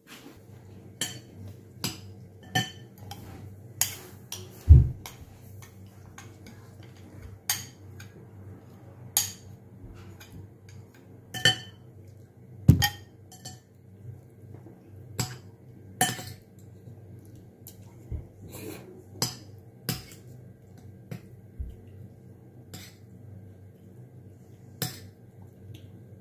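Metal spoon and fork clinking and scraping against a ceramic bowl while eating, in irregular sharp clinks about once a second, with two heavier knocks about 5 and 13 seconds in, over a faint steady hum.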